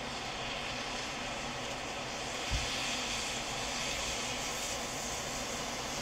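Typhoon-swollen river in flood rushing and breaking in white water around concrete bridge piers, a steady rushing roar with a brief low bump about two and a half seconds in.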